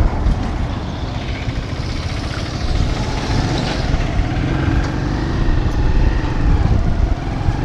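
Small motorcycle's engine running under way, heard from the pillion seat, with wind rushing on the microphone and road traffic, including a passing lorry.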